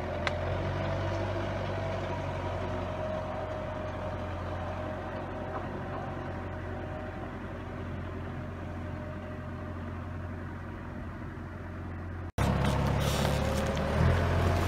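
Antonio Carraro TRX9900 tractor's diesel engine running steadily at a distance and slowly growing fainter as it drives away. After a sudden cut about twelve seconds in, it is much louder and close by as the tractor drags a large log.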